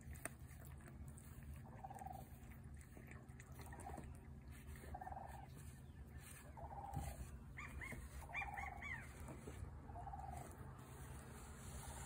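Faint dog barking, single barks repeated every second or two. A few quick high chirps, likely a bird, come about eight seconds in.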